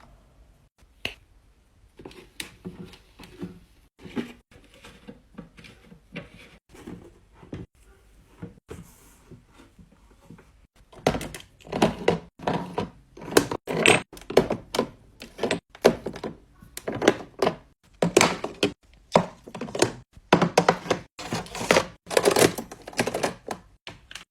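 Skincare bottles and jars clacking and knocking as they are set down and arranged, a run of separate taps and thunks that turns louder and busier about halfway through.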